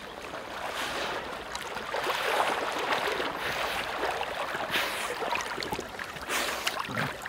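Retriever swimming through water, steady sloshing and splashing with a couple of sharper splashes in the second half.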